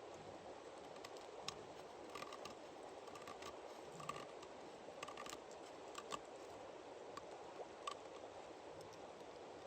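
Scattered small clicks and taps at irregular moments over a steady low hiss.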